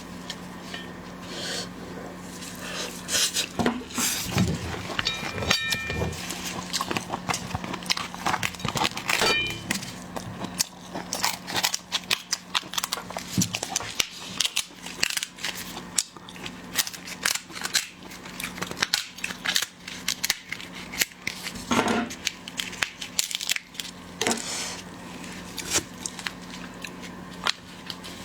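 Irregular crackling, clicking and clattering of shellfish shells and utensils being handled and cracked, over a steady low hum. Two brief high tones sound about six and nine and a half seconds in.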